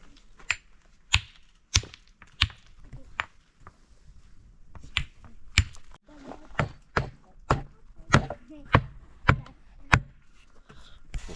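A series of sharp striking blows, like chopping, about two a second. There are about fourteen in two runs, with a short pause a few seconds in.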